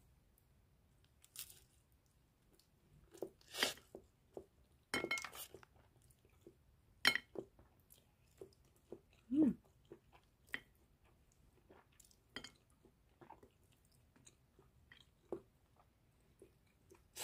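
A person biting and chewing a mouthful of thin tortilla-crust corn cheese pizza: irregular soft crunches and mouth clicks, with a short low hum a little past the middle.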